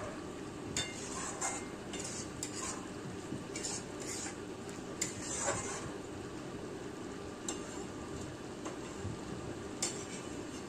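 Metal spatula stirring and scraping parwal and potato pieces through a thick masala in a metal kadhai, over a steady low sizzle of frying. The scrapes come irregularly, several in the first half and only a few later, as the spices are fried until the oil separates.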